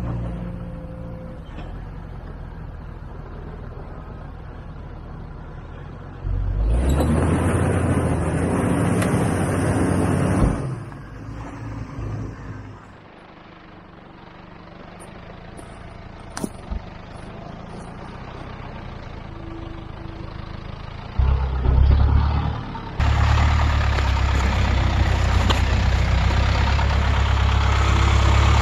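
Off-road 4x4 engines (a Jeep Wrangler, then a Land Rover 110) running under load as they crawl through deep ruts and over rock ledges. The sound comes in several abruptly cut segments, loudest for a few seconds about a quarter of the way in and again over the last several seconds.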